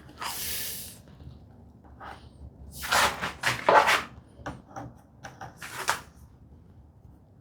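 Wooden workpieces being handled and shifted on the bench: a few short scrapes and rustles, the loudest around the middle, with light knocks and clicks between them.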